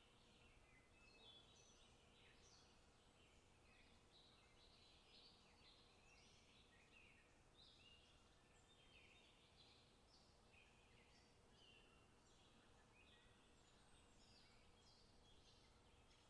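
Faint, busy chirping and calling of many small birds, short overlapping chirps that keep coming without a break.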